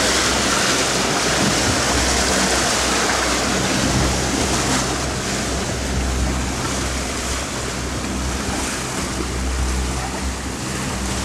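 Boat under way through choppy water: the steady rush of water and wind over the low, even hum of its twin outboard motors.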